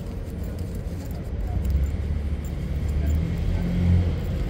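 Low engine rumble of a motor vehicle close by, swelling to its loudest near the end.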